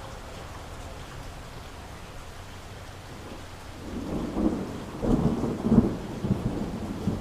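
Steady rain with a roll of thunder that starts about four seconds in and rumbles in several swells, loudest near the end.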